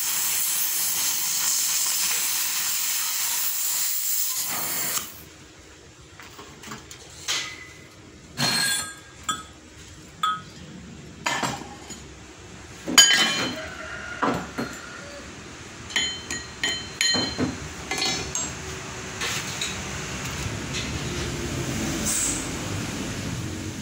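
An oxy-fuel cutting torch hisses steadily through thick steel plate and shuts off suddenly about five seconds in. A string of sharp, ringing metal knocks and clinks follows as the cut steel disc is worked loose with a steel bar.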